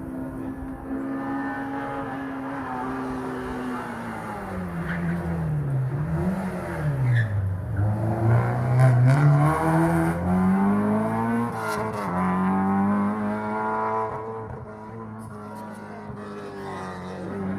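Ford Escort Mk1 rally car engine. It holds steady revs, then drops in pitch in steps as the car brakes and shifts down about five seconds in. It then revs back up, with a gear change near twelve seconds, and is loudest near the middle as it passes.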